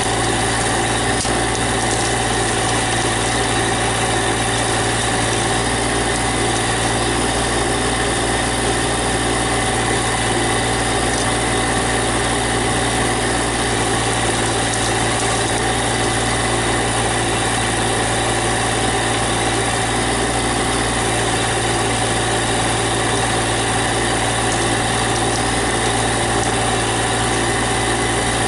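Engine of a GC1710 compact tractor with backhoe running steadily at an even speed throughout.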